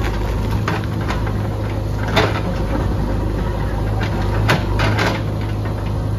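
JCB backhoe loader's diesel engine running steadily while its backhoe bucket works the uprooted tree's root ball, with several sharp knocks. The loudest knocks come about two seconds in and again around four and a half seconds in.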